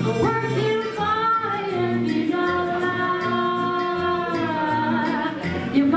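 Live 1940s-style swing band music: a woman singing long held notes into a microphone over a steady plucked double-bass line.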